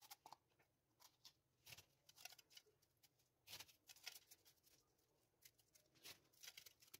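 Faint, irregular crunching of crushed ice being squeezed and packed by hand into a small cup.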